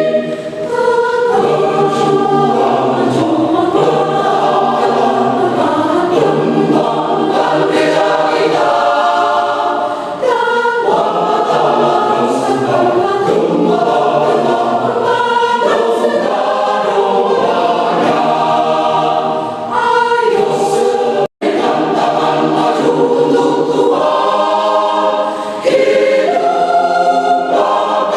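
Church choir singing, many voices together in a sustained loud passage with short breaks between phrases. The sound cuts out for an instant about 21 seconds in.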